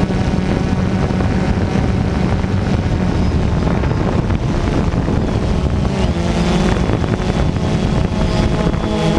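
DJI Phantom 2 quadcopter's motors and propellers whirring steadily with wind noise on the onboard camera's microphone, the pitch shifting a little about six seconds in.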